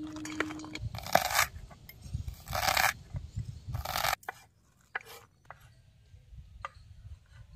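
A kitchen knife scraping chopped vegetables across a wooden chopping board: three long scrapes in the first four seconds, then a few light knife knocks on the board.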